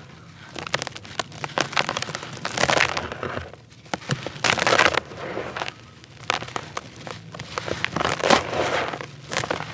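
Dry, soft stoney brick pieces being crushed and crumbled by hand in a tub, in repeated gritty crunching bursts full of small crackles.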